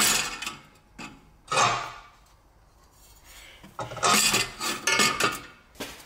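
Metal clanking and scraping of an Aston Martin Vantage's secondary catalytic converter pipe as it is worked free of the exhaust and lifted out by hand. There is a sharp knock at the start and another about a second and a half in, then a run of clattering from about four seconds in until near the end.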